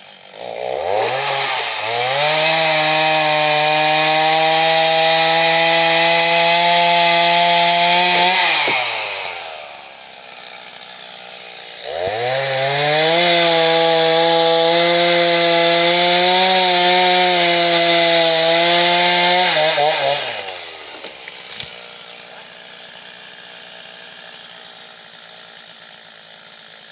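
Gas chainsaw revved to full throttle for about eight seconds while cutting a fallen tree. It drops back to idle, runs at full speed again for another eight seconds or so, and then settles to a low idle.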